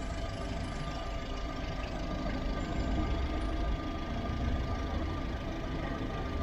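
Volkswagen SpaceFox engine idling steadily at operating temperature during a coolant flush.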